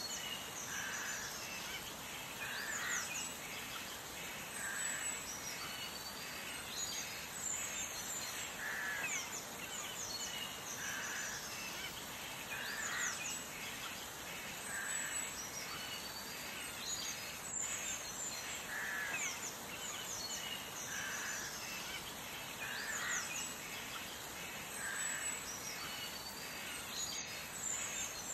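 Birds singing and calling over a steady outdoor hiss: quick high chirps, with a lower call repeating about every two seconds.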